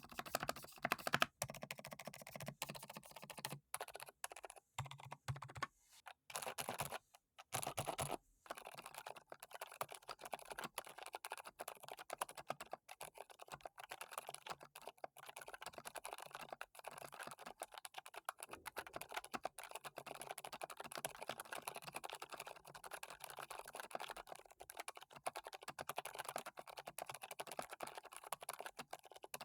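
Typing on a Keychron C2 Pro 8K mechanical keyboard: separate key strokes with short pauses for the first several seconds, then steady fast typing.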